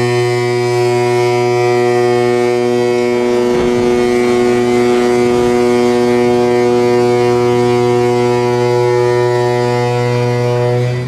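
A ship's horn sounding one long, steady, deep blast during a ship's side launch, cutting off near the end, over the rush of water as the hull slides sideways into the canal.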